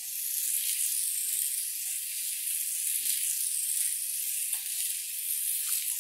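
Tiny electric motor and gears of a 1:64-scale toy RC car whirring in a high-pitched hiss that swells and fades as it drives.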